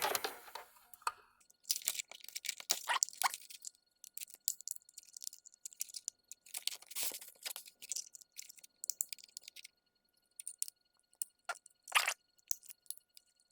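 Metal pry tool scraping and levering at the seam of a plastic wall-plug charger case: scraping and crunching in short spells, with sharp cracks near the end as the plastic gives.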